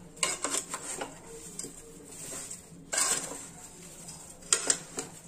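A spoon stirring whole amla and granulated sugar in a nonstick kadhai, scraping and knocking against the pan in irregular strokes. The loudest knocks come about three seconds in and near the end.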